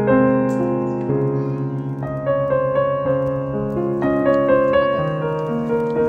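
Background music: a soft keyboard melody of held piano notes that change every half second or so.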